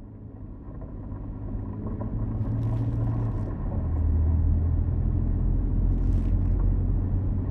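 Car engine and road rumble fading in, low and steady. The engine note drops a little about three seconds in.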